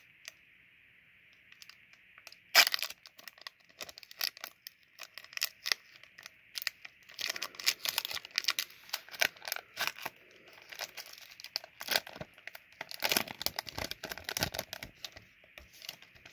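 Wrapper of a 1st Edition Pokémon Jungle booster pack being torn and peeled open by hand, giving crinkling, tearing crackles. There is one sharp crack about two and a half seconds in, and denser crinkling runs around the middle and again near the end.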